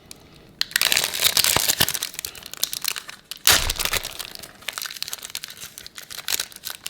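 Wrapper of a basketball trading-card pack crinkling and tearing as it is ripped open and the cards are handled, in quick irregular crackles, starting about half a second in. A single thump about three and a half seconds in.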